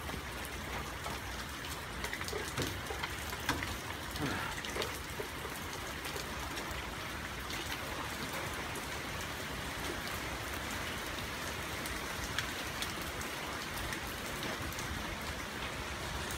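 Steady rain falling, with scattered sharp ticks of individual drops striking nearby surfaces.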